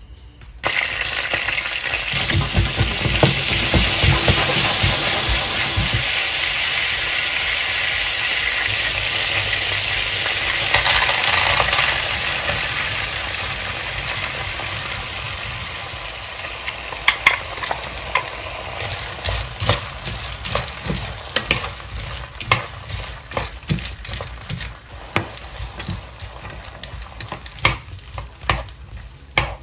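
Frozen green peas hitting hot melted butter in a nonstick frying pan: a loud sizzle starts suddenly just under a second in, swells again a little before halfway, then slowly dies down. In the second half a wooden spatula scrapes and taps against the pan as the peas are stirred.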